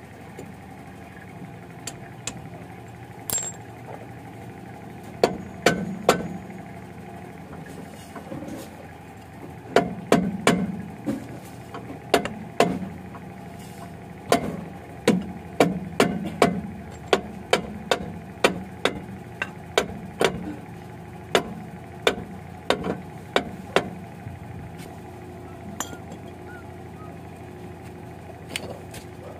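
Repeated sharp hammer taps on a Honda Fit rear brake drum, seating it back over the new wheel bearing hub. A few scattered blows come first, then a steady run of about two a second, and they stop some five seconds before the end. A steady hum runs underneath.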